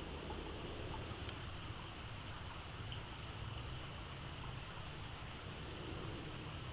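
Forest ambience: an insect repeating a short high chirp about once a second over a steady low hiss, with a couple of faint clicks.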